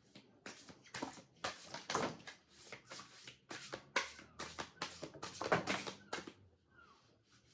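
A 78-card oracle deck being shuffled by hand: a quick, uneven run of card flicks and slaps that stops about six seconds in.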